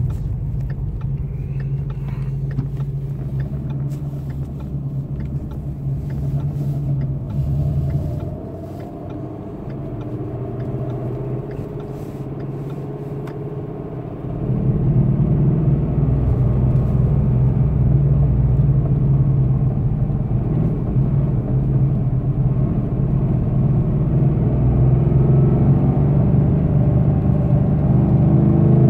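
Car engine and road noise heard from inside the cabin while driving, stepping up louder about halfway through. Under it, possibly too faint to pick out, is the rubbing click that tracks engine RPM and sounds like a fan hitting something. It is faint now that the engine is warm.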